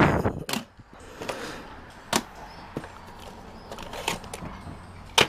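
Hard plastic audio cassette cases clacking against each other as a hand sorts through a box of tapes, in a handful of separate sharp clicks.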